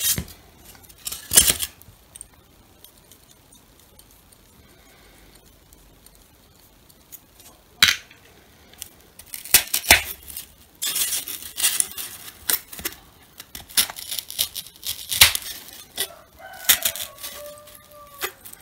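Thin wire being pushed and worked into a block of polystyrene foam: a few sharp clicks, then dense crackling and scratching, with short squeaks near the end.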